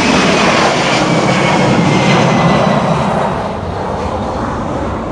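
Boeing 767-300ER jet engines at takeoff power as the airliner goes past, a loud steady rush with a whine that falls in pitch; it eases after about three seconds as the aircraft moves away.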